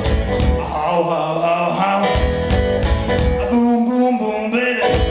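Live band music: electric guitar, bass and drums playing, with a singing voice.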